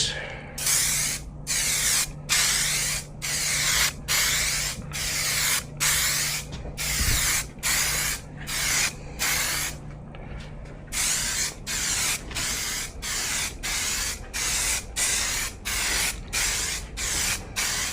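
Aerosol spray can of primer hissing in short repeated bursts as it is swept across a wheel rim for a light first coat. The bursts come about one a second, with a pause of about a second midway, and come quicker after that.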